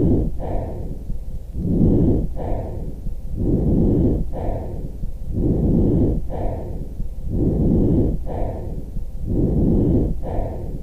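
Lung sounds: steady breathing, about one breath every two seconds, with five even breaths in a row.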